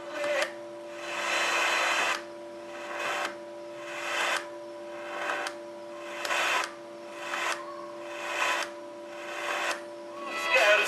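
Mini USB speaker's FM radio tuning between stations: a short burst of radio static about once a second, each cut off in turn, over a faint steady electronic whine.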